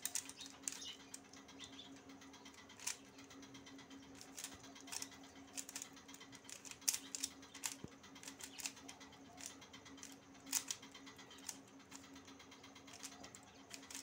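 Plastic 3x3 Rubik's cube being turned by hand: irregular sharp clicks and rattles as its layers snap round, over a faint steady hum.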